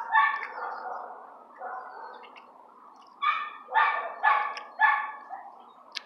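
A dog barking: a bark at the start, another about two seconds in, then four quick barks about half a second apart.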